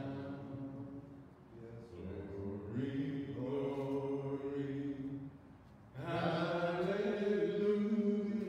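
A man's voice singing slow, long-held notes in a chant-like style, in three drawn-out phrases with short breaths between them.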